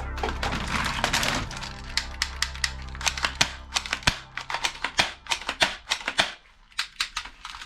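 Irregular run of sharp plastic clicks from toy bead guns, about four a second, over background music that fades out near the end.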